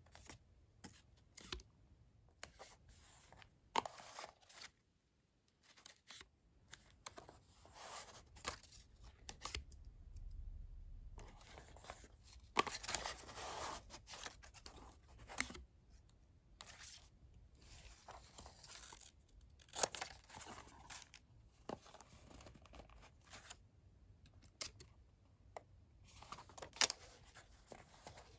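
Paper stickers being peeled one by one off a roll, each peel a short crackling tear, and pressed down onto a notebook page with scattered light taps and clicks of fingers on paper.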